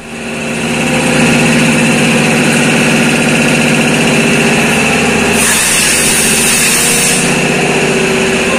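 Motorcycle engine idling steadily, with a brief hiss a little past halfway through.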